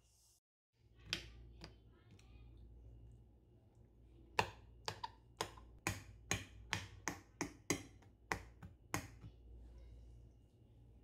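A fork pricking raw white fish fillets on a ceramic plate, its tines tapping through onto the plate in a quick series of about a dozen sharp clicks, roughly three a second. Two single clicks come about a second in.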